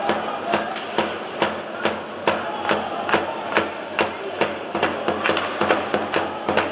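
Fans in the stands of an ice hockey arena beating out a steady rhythm, about two sharp knocks a second, over a murmur of the crowd.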